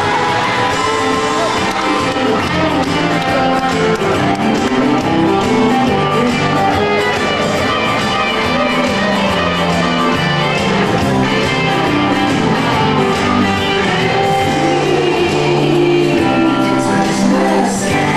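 Loud recorded song with singing, playing continuously as dance music.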